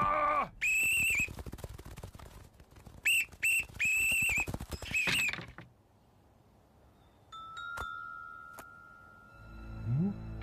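A whistle blown in sharp, shrill blasts: one long blast, then two short ones and two longer ones, over a quick patter of light taps. After a brief quiet comes a thin steady tone with a couple of clicks.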